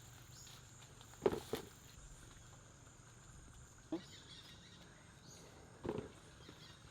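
A few short dull thumps, four in all, spread over several seconds, like fruit being thrown down and landing. Under them runs a steady high insect drone.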